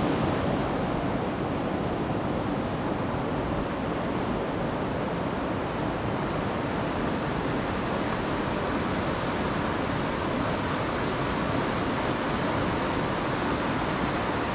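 Steady rush of a swift river running over rocks and riffles.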